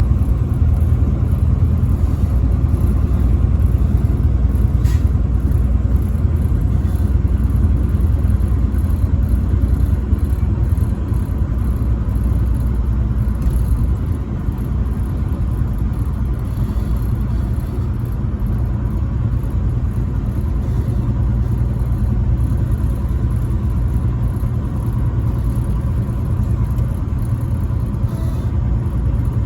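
Truck driving on the highway: a steady low engine and road rumble, with a faint steady whine above it.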